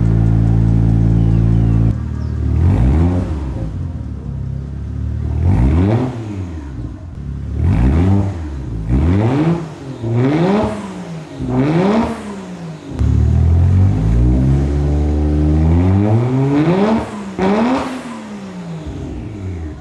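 1JZ turbo straight-six engine of a Toyota Soarer revving repeatedly through its new custom-welded exhaust. The revs climb and drop about a dozen times, settling briefly at a steady lower speed partway through.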